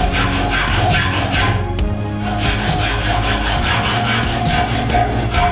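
Flat hand file rasping across steel held in a bench vise, in repeated back-and-forth strokes.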